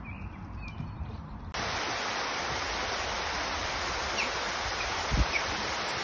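Small waterfall cascading over rocks: a steady rushing hiss of water that cuts in suddenly about a second and a half in, with a few faint bird chirps over it. Before it, quieter outdoor air with faint bird chirps and a low wind rumble.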